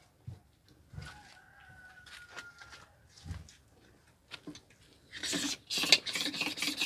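A rooster crows once, one long call lasting about two seconds and falling slightly in pitch, starting about a second in, over faint scattered clicks. Near the end a louder rough rustling, scraping noise sets in.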